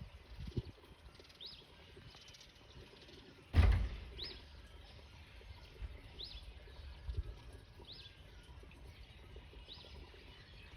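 A small bird giving a short high chirp over and over, about one every one and a half seconds, over faint background noise. There is one dull thump about a third of the way in.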